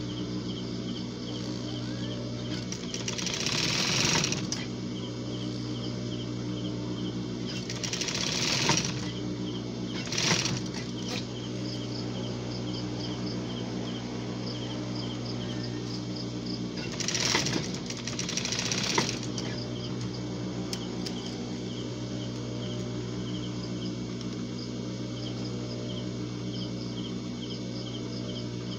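Industrial sewing machine motor running with a steady low hum, broken by a few short noisy bursts a second or two long.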